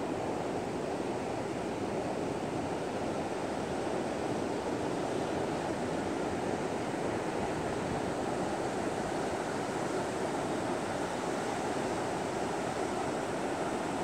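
Pre-storm surf breaking in several lines and washing up a sand beach, heavy with stirred-up sand: a steady, continuous rush with no separate crashes standing out.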